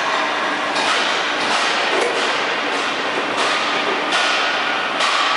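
Hydraulic riveting machines working on a vehicle chassis frame: a steady mechanical din and hum, broken every second or so by short hissing bursts and knocks.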